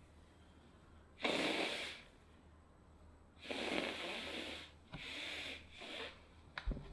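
A woman's forceful, spraying sneeze bursts out suddenly about a second in, followed by a few more loud breathy blasts of air, the longest at about the midpoint.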